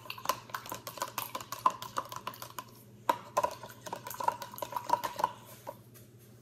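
A spoon stirring a drink in a plastic cup, clicking quickly and repeatedly against the sides. The stirring pauses briefly about three seconds in, then goes on and stops shortly before the end.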